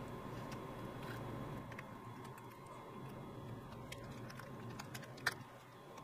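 Faint steady hum with a few light clicks and taps from hands handling an opened MacBook Pro and its parts; the sharpest click comes about five seconds in.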